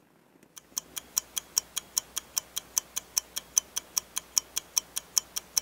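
Clock-ticking sound effect: fast, even ticks, about five a second, starting just under a second in, marking the stew's simmering time passing.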